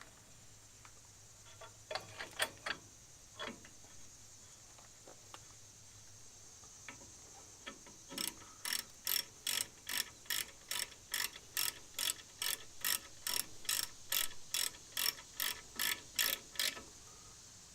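Ratchet wrench clicking as the brake caliper bolts are run down. There are a few scattered clicks and knocks, then a steady run of clicks, about three a second, for roughly eight seconds.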